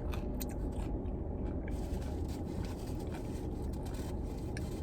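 Steady low rumble inside a car, with a few faint clicks.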